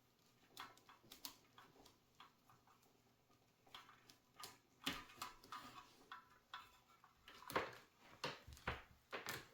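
Faint, scattered clicks and light knocks of hands handling small objects, a dozen or so at irregular intervals, a little more frequent in the second half, with near silence between them.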